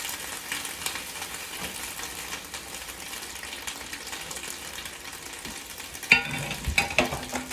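Whole beans frying in hot lard in a skillet, sizzling steadily and crackling as a spoon stirs them. A couple of sharp knocks come about six seconds in.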